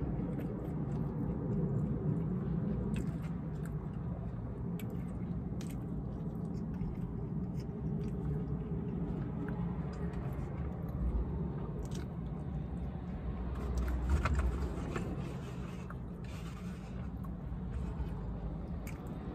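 Close-up chewing and mouth sounds of a person eating, with small clicks. About two-thirds of the way through there is a scraping rustle as a takeout food container is handled. A steady low hum runs underneath.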